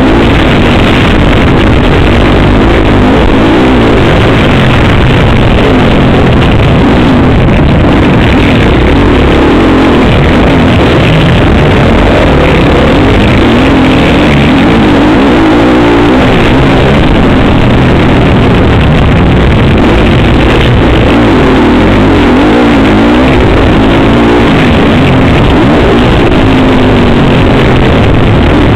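Motocross dirt bike engine heard close from an on-board camera, revving up and down as it accelerates and shifts through the race course, over heavy wind and track noise. The pitch keeps rising and falling, and it is loud throughout.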